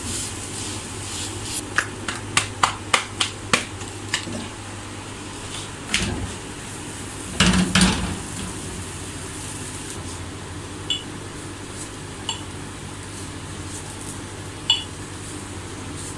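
Kitchen utensils being handled: a quick run of sharp clicks and taps, a heavier clatter about halfway through, then a steady low hum with a few faint light ticks as the paratha cooks on the griddle.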